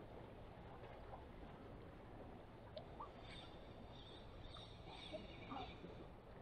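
Near silence: faint outdoor background with a low steady rumble and a few faint, short chirps scattered through it, mostly in the second half.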